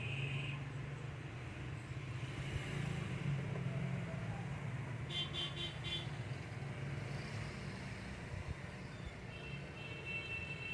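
Automatic slot-paper insertion machine for ceiling fan stators running: a steady low hum, with a quick run of four sharp clicks about halfway through.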